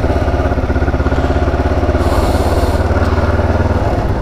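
Kawasaki Ninja 500's parallel-twin engine running at low revs as the motorcycle rolls slowly, with a steady pulsing beat.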